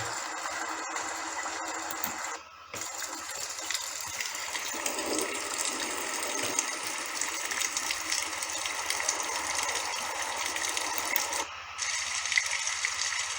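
Steady rain falling: a dense hiss of drops with small ticks and patters, cutting out briefly twice.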